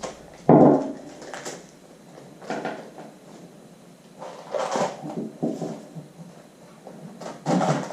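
Intermittent handling noises: a few short knocks and rubs of parts being fitted against the kayak's plastic hull, with no drill running.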